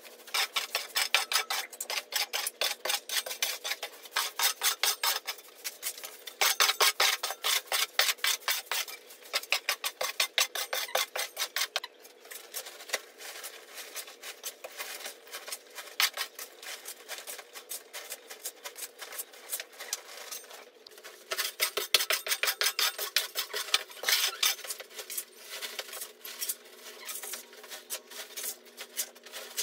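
Brooms and long-handled tools sweeping and scraping dirt and loose rubble across a concrete floor, in quick strokes about four a second. They come in loud spells, with a softer stretch in the middle.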